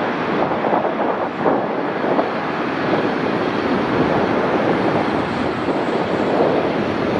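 Four-engine Boeing 747-400 jet airliner giving a steady, even jet roar.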